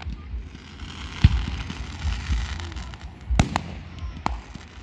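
Fireworks going off: a sharp bang about a second in and another just past three seconds, followed by a few smaller cracks, over a steady crackling hiss.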